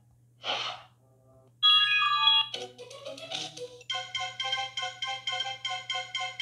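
iPhone alert tones from the Classic set playing as previews, one after another as each is tapped in the New Mail list. A short whoosh comes about half a second in, then brief chimes, another short tone figure, and from about four seconds in a quick repeating pattern of short pitched notes.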